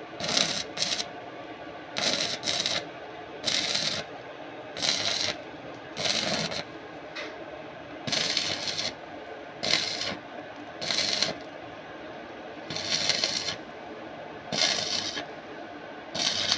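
Repeated short scraping or rasping strokes, about a dozen, each under a second, coming at uneven intervals of roughly one to one and a half seconds.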